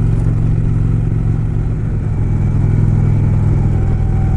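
2018 Indian Springfield's Thunder Stroke 111 V-twin engine running steadily at cruising speed.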